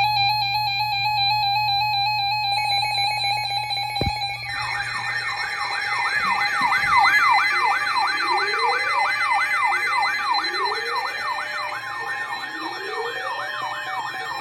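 Layered electronic emergency alert tones. Steady alarm tones sound from the start, with more joining about 2.5 s in. About 4.5 s in, a siren-like warble sweeping up and down about twice a second sets in over them, with a slower rising glide every few seconds.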